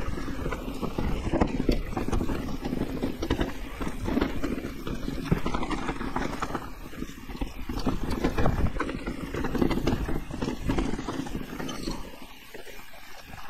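Electric mountain bike rattling down a rough trail: a steady rumble of tyres over dirt with rapid irregular knocks and clatter as it hits roots and rocks, easing a little near the end.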